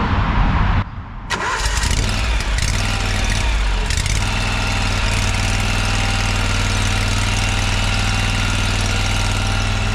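Toro Z587L zero-turn mower's engine starting: a short break about a second in, then it catches and runs up, settling into a steady idle by about four seconds in.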